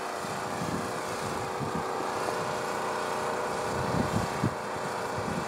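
Diesel engines of two CN SD75I locomotives (EMD 16-cylinder 710 two-stroke engines) on an approaching train, a steady drone.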